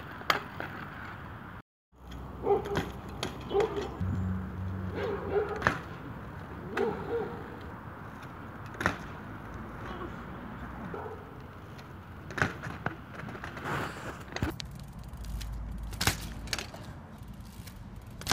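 A 26-inch mountain bike hopping and landing on asphalt over and over, with sharp knocks and rattles as the tyres hit the ground and the frame and chain clatter.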